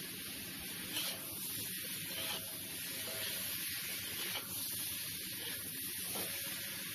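Metal spatula scraping and stirring chicken, apple and tomato pieces in a wok over a steady sizzle, with a few louder scrapes standing out.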